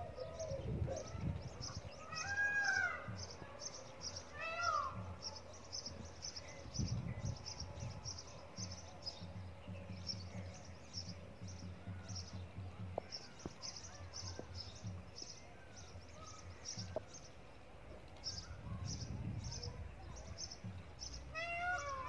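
A short, high chirp repeated steadily about twice a second. Over it come a few arching, mewing calls about two and four seconds in and again near the end.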